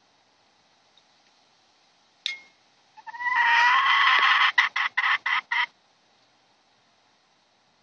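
A bantam chicken calls: one long drawn-out note about three seconds in, breaking into five or six quick short notes. A single sharp knock comes just before the call.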